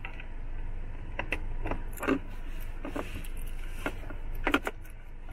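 Clear plastic packaging bag crinkling and a run of small clicks and knocks as a USB dongle is pushed into a car's USB port under the dashboard, the sharpest clicks about two seconds in and near the end, over a steady low hum.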